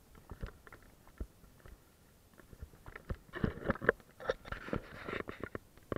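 Kayak paddle splashing and dripping water, heard as faint, irregular small clicks and patters that thicken into a denser spell of splashing about three seconds in.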